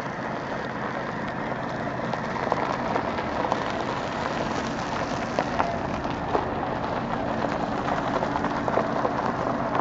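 A huge mixed flock of snow geese and sandhill cranes calling all at once: a steady, dense din of many overlapping calls, with no single bird standing out.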